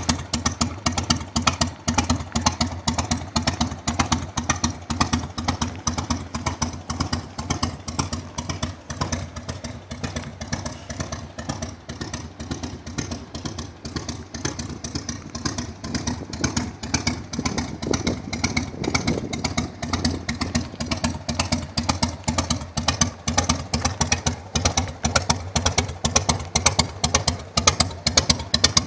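Harley-Davidson Fat Boy's 1340 cc Evolution V-twin idling, its exhaust giving a steady, pulsing beat.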